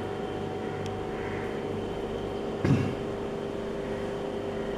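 Aquarium pump humming steadily, a constant electrical drone with a few fixed tones. About three seconds in, a brief low bump cuts in over it.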